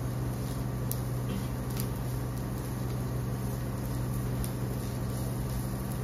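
Steady electrical hum of an induction cooktop running, with a few faint clicks of a silicone spatula stirring in a nonstick pan.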